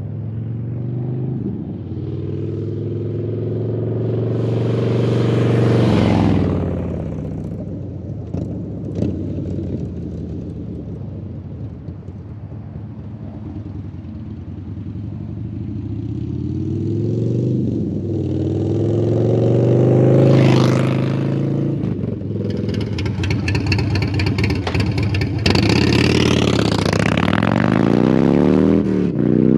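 Harley-Davidson Twin Cam V-twin engine running loud through an SP Concepts Lane Splitter exhaust, its revs climbing and falling back again and again: a slow rise about six seconds in, another about twenty seconds in, and a rapid pulsing rise near the end.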